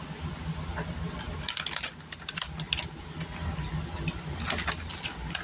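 Light clicking and rattling of kitchen items being handled, in two short flurries, about one and a half seconds in and again near the end, over a steady low hum.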